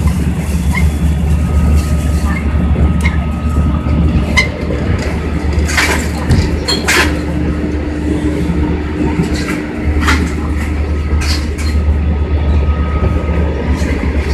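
Running noise inside a motor car of a JR East E351 series tilting express at speed: a steady low rumble with a faint steady hum, and the wheels clacking over rail joints a handful of times.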